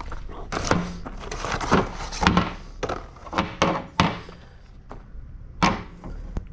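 Irregular knocks and clunks of hard parts and tools being handled during wheel-seal work on a truck's wheel end, about eight in all, the sharpest about four seconds in.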